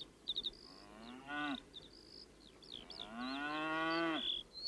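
Cows mooing twice, a short moo about a second in and a longer one about three seconds in, with small birds chirping throughout.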